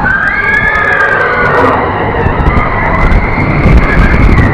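Roller coaster train running fast along the track, a loud continuous rumble with wind buffeting the microphone, and a high wavering screech over it that rises and falls.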